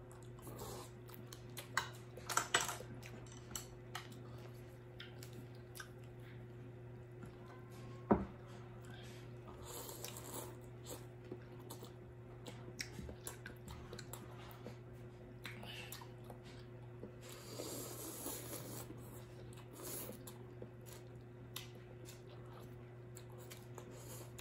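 People chewing and slurping batchoy noodles, with small clicks of chopsticks and a spoon against ceramic bowls and one sharper knock about eight seconds in, over a steady low hum.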